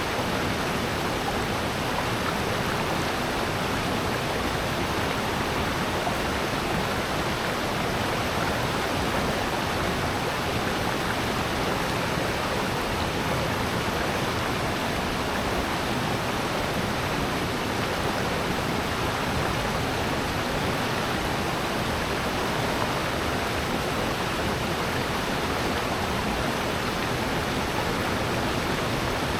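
Steady rush of a mountain stream and waterfall in a valley gorge, an even wash of water noise with no changes.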